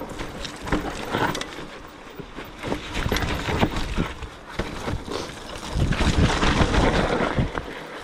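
Mountain bike being ridden over a wet, muddy trail: tyres through mud and slop, with repeated knocks and rattles from the bike, and wind buffeting the microphone, heaviest from about six to seven and a half seconds in.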